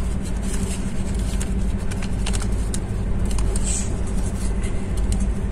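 Steady low rumble of an Indian Railways express train running, heard from inside the air-conditioned coach. Over it come short crackles of paper food packets and plastic sachets being handled.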